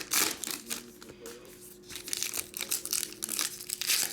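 Crinkling and tearing of trading card pack wrappers as packs are handled and opened, in irregular bursts: a burst at the start, quieter for about a second and a half, then more from about two seconds in.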